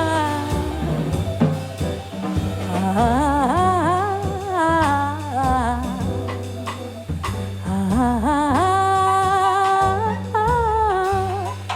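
Live jazz quintet playing: a lead melody with strong vibrato over double bass, piano and a drum kit.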